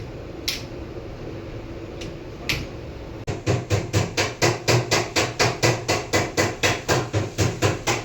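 Tata Tigor petrol engine running with a steady low hum and a few single clicks. About three seconds in, a loud regular knocking starts, about four knocks a second: this is the engine noise problem the car has.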